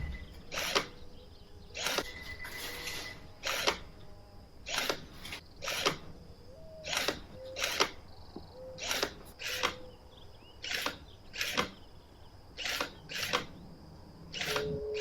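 A series of short, sharp clicks, roughly one or two a second and often in pairs, with a few faint, short low tones between them.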